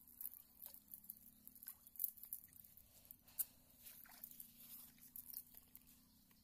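Faint, irregular small splashes, drips and crackles of a wet nylon cast net being gathered up out of shallow pond water and handled, with a slightly louder click about two seconds in and another about three and a half seconds in.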